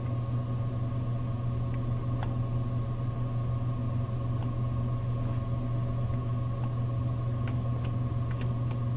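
Steady low hum with a few steady higher tones, from a vending machine's running cooling unit. Faint clicks at irregular moments, mostly in the second half, as its selection buttons are pressed to scroll through the service menu.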